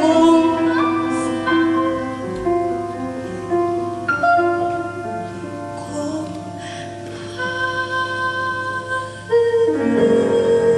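A woman singing live into a microphone, holding long notes that step from pitch to pitch, over musical accompaniment. A steady low hum runs underneath.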